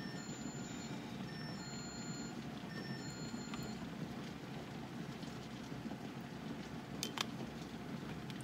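Steady low rumbling hiss of a pot heating on the stove, with a couple of sharp clicks about seven seconds in as the plastic canning funnel is lifted off the filled jar.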